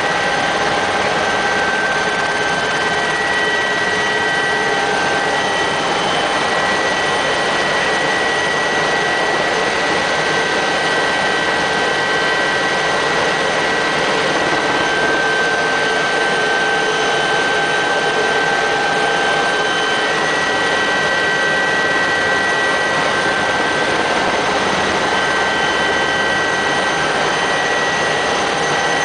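Helicopter in flight heard from inside its cabin: a loud, steady engine and rotor noise with a thin, steady high whine running through it.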